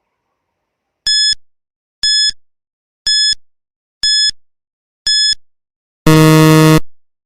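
Countdown timer sound effect: five short high beeps, one a second, then a longer, lower buzzer that marks the answer time as up.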